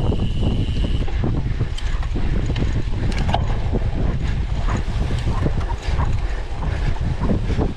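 A cyclocross bike ridden over rough ground: irregular rattles and clicks from the frame and drivetrain over a steady low rumble, with wind noise on the microphone. A steady high tone sounds during the first second and then stops.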